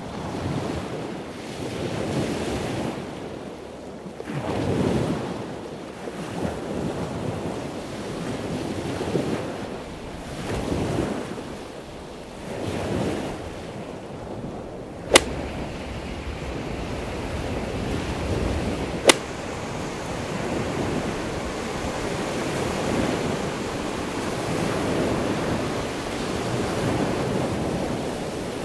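Sea surf breaking and washing up a sandy beach in slow swells, with wind buffeting the microphone. Two sharp clicks come past the middle, about four seconds apart.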